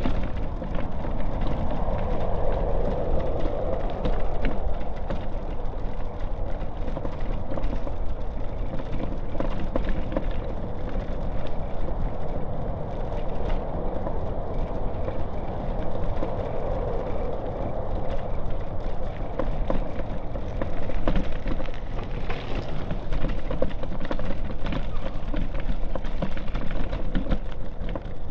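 Outdoor city street noise with passing traffic, a steady low rumble and many small clicks throughout.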